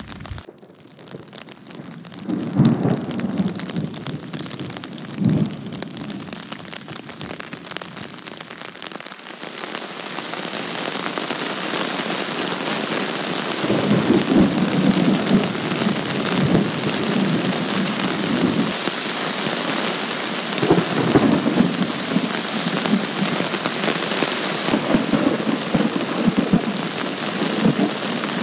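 Heavy thunderstorm: rain falling hard with thunder. Sharp thunder cracks come a couple of seconds in and again a few seconds later. The rain grows heavier about ten seconds in, with rolling thunder rumbling under it several times.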